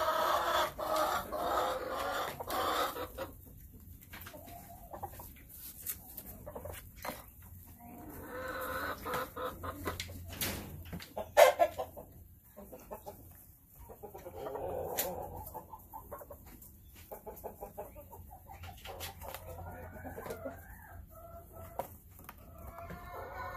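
Hens clucking in several bouts, with a single sharp knock about eleven seconds in.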